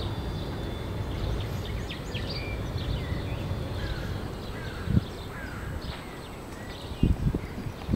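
Low steady rumble of a Eurocopter EC135 rescue helicopter starting up, its main rotor turning slowly, with small birds chirping over it and a single low thump about five seconds in.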